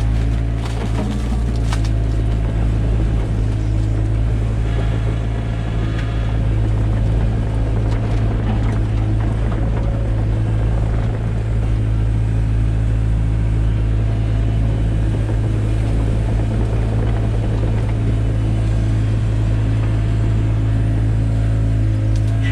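Takeuchi TB175 excavator's diesel engine running steadily at working speed, with a few brief knocks.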